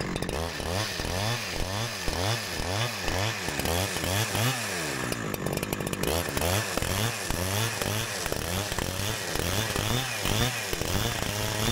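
Two-stroke chainsaw running under cut along a spruce log, its engine pitch rising and falling over and over, about one and a half times a second, as the bar works a shallow scoring cut along the marked line.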